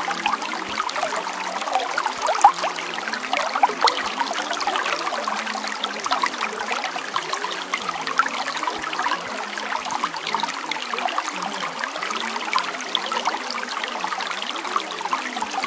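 Running water trickling and splashing steadily, as of a small stream, without pause or change.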